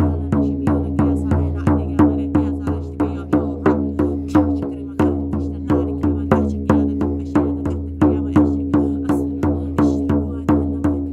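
Shamanic frame drum beaten in a steady rhythm, about three strikes a second, over a low sustained drone.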